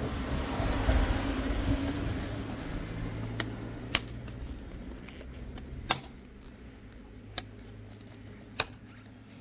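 A plastic air filter housing lid on a BMW E90 being handled and pressed down onto the airbox: rustling handling noise at first, then five sharp plastic clicks spread a second or two apart as the lid is seated and clipped shut.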